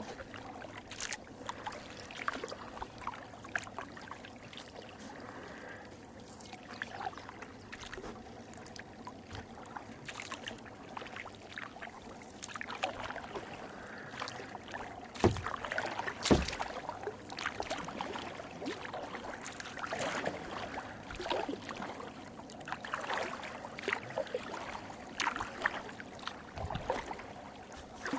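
Kayak paddle dipping and splashing in the water, stroke after stroke at an uneven pace, with two sharp knocks about halfway through.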